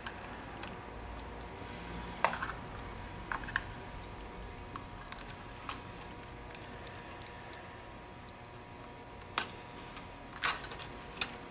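Scattered light clicks and taps of hands handling a laptop hard drive and its SATA cable connector, with a few sharper clicks a little after two seconds and again near the end. A faint steady hum runs underneath.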